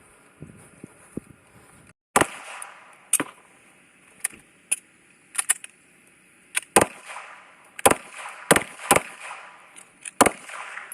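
A string of about a dozen pistol shots at irregular spacing, some close together, starting about two seconds in, with a few light clicks before them.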